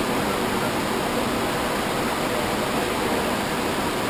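A steady, even hiss of background noise, with no distinct events.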